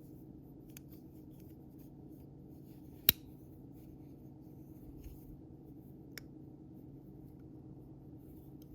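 Leatherman OHT multitool being handled: one sharp metal click about three seconds in and a couple of faint ticks, over a low steady hum.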